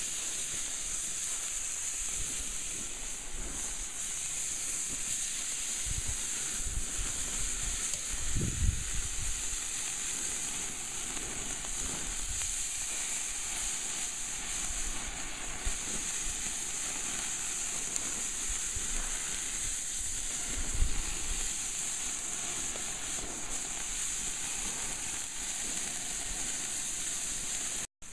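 Marinated lamb steaks sizzling on a charcoal grill grate as they are laid over the hot coals with tongs: a steady hiss, with a few dull low thumps.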